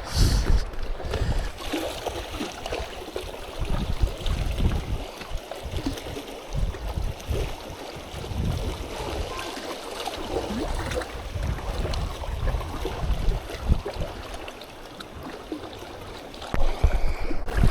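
Strong wind buffeting the microphone in irregular gusts, a rumbling that rises and falls, over a steady outdoor hiss.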